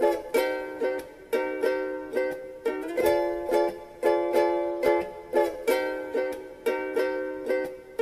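Background music: a light plucked-string chord pattern, each chord struck sharply and fading, about two a second, with no drums or voice.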